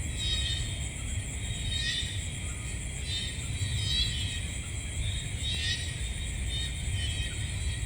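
Night insect chorus: crickets trilling steadily at a high pitch, with a louder wavering call coming back every second or two, over a low steady rumble.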